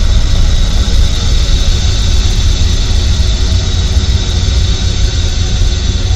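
Experimental ambient noise music: a loud, steady wall of noise with a heavy low rumble under a hiss that reaches high up, unchanging throughout.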